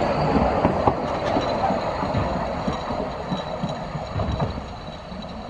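Carriages of the Vale of Rheidol narrow-gauge railway rolling past and away, their wheels clattering and knocking over the rails. The sound fades steadily as the train recedes.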